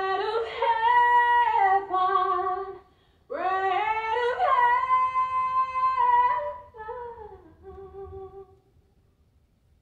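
A woman singing long held notes with no accompaniment, in two phrases: the first breaks off about three seconds in, the second carries on and trails off softly around eight seconds in.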